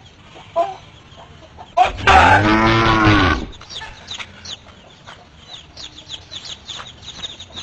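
A cow moos once, a long call about two seconds in whose pitch rises and then falls. Chickens cluck and give short high chirps around it.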